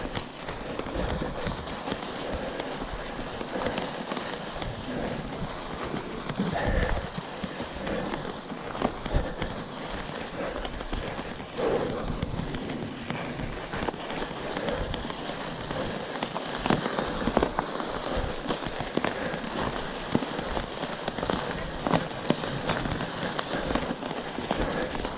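Mountain bike ridden off-trail over rough ground: a steady crackle and rattle from the tyres and bike, with many small clicks and knocks throughout.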